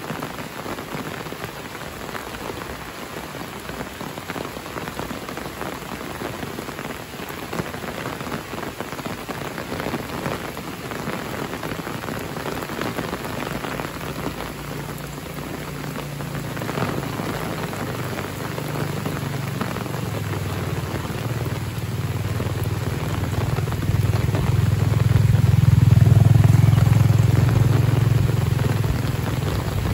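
Steady tropical rain falling on leaves, plants and wet ground. From about halfway a low rumble swells in underneath, loudest shortly before the end, then eases off.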